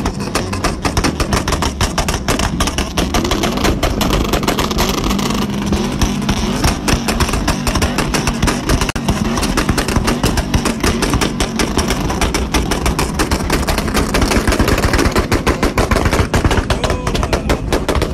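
A pickup truck's modified exhaust is backfiring in a rapid, continuous string of loud bangs and pops over the running engine. The flames from both tailpipes show unburnt fuel igniting in the exhaust.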